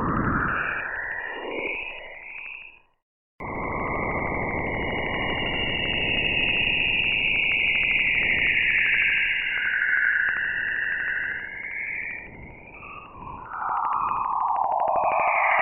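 Jupiter radio and plasma-wave data from NASA's Juno spacecraft, converted into sound: a hiss with bands of tone that slowly sweep up and down. It cuts out completely for a moment about three seconds in, then starts again.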